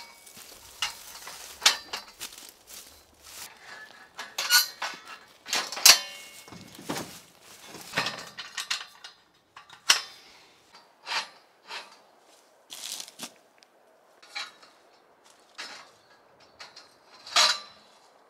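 Steel scaffolding parts clanking and clinking as the frames, cross braces and screw-jack leveling feet are handled and fitted together: irregular metal knocks, a few of them ringing briefly.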